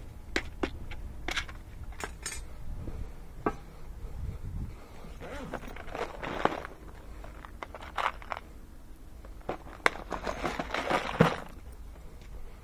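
Loose crimp connectors rattling and clinking inside a clear plastic terminal kit case as it is carried and handled, with scattered sharp clicks and rustles.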